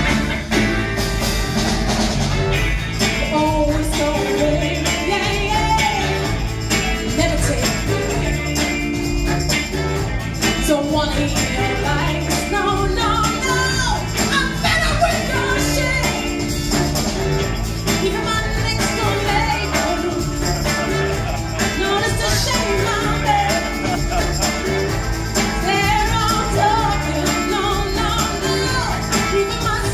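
Northern Soul band playing live with a woman singing lead over a steady beat from drums and congas, electric guitars, saxophone and trumpet.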